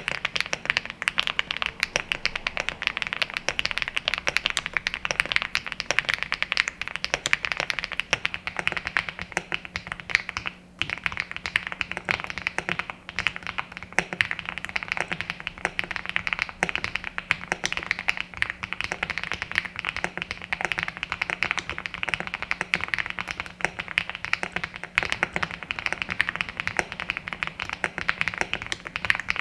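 Fast, continuous typing on an EVO80 custom mechanical keyboard with factory-lubed switches: a dense stream of keystroke clacks, with a brief break about ten seconds in.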